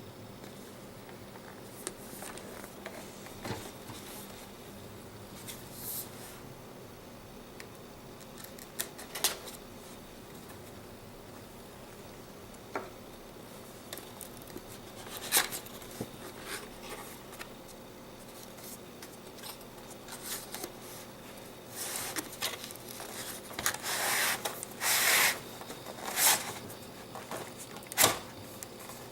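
Packaging being handled and opened during an unboxing: scattered clicks, taps and short scrapes, growing into a cluster of louder rustling scrapes near the end.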